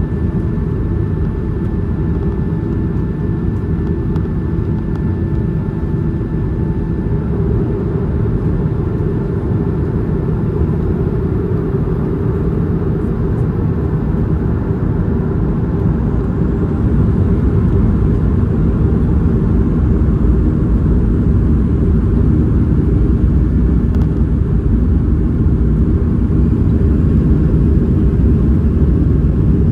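Boeing 737-500 cabin noise at a window seat over the wing while taxiing onto the runway: a steady low rumble of the CFM56-3 engines at taxi power and the rolling airframe. It gets a little louder about halfway through, with a faint high whine rising.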